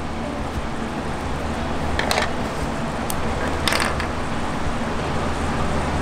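A pencil marking a wooden board, two short scratchy strokes about a second and a half apart, over a steady low hum.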